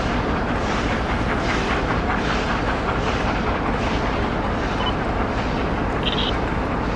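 Two-cylinder LMS Stanier Black 5 steam locomotive No.44932 moving slowly with its support coach, its exhaust beating evenly, a little over one chuff a second, over a steady low rumble. A short high tone sounds about six seconds in.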